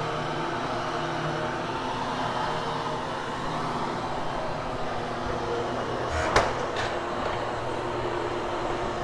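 Hoover Hushtone upright vacuum running steadily while being pushed over carpet. A sharp knock about six seconds in, with a smaller one just after.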